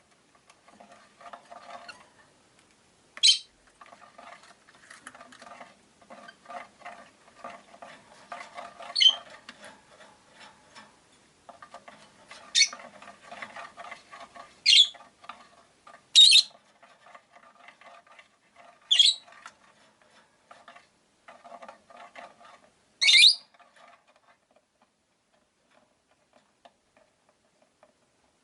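Rosy-faced lovebirds giving short, shrill chirps, about seven of them spaced through, over a soft, constant patter of clicking and rustling. The calls and patter stop for the last few seconds.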